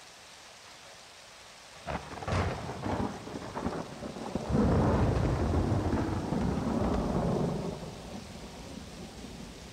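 Thunder over steady rain: a sharp crackling clap about two seconds in, followed by a long low rolling rumble that fades away near the end.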